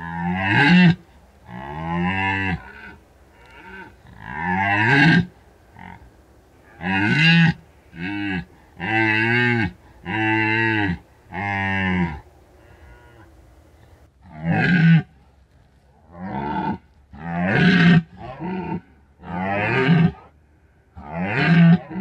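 Red deer stag roaring in the rut: a run of about fourteen loud roars, each lasting about a second, in two bouts split by a pause of about two seconds near the middle.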